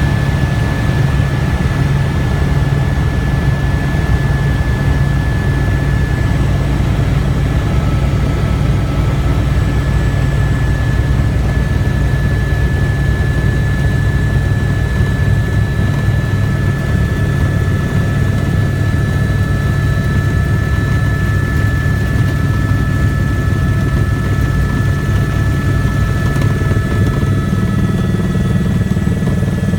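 Helicopter engine and rotor running steadily: a dense low drone with a steady high whine over it, the low part shifting slightly near the end.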